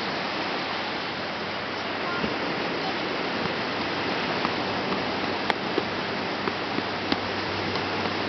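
Steady rush of ocean surf at the shoreline, an even hiss that barely rises or falls, with a few sharp clicks past the middle.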